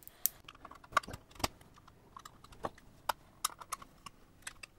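Irregular sharp plastic and metal clicks and snaps from a floppy drive's casing being handled and pried apart, as its front faceplate is worked loose. The loudest snaps come about a second and a second and a half in.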